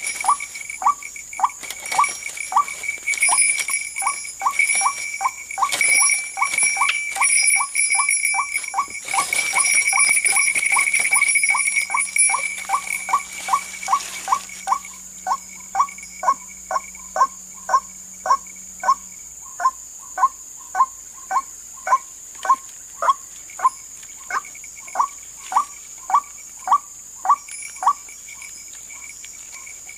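White-breasted waterhen (wak-wak) call, a short falling note repeated about twice a second without a break, used as a lure call; it stops near the end. Rustling of leaves and handling of the trap covers the first half, over a steady high-pitched whine.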